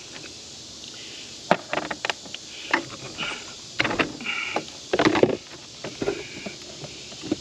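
Irregular metal clanks, knocks and scrapes from parts of a rooftop RV air conditioner being handled and worked loose while its fan is taken off, one or two knocks ringing briefly.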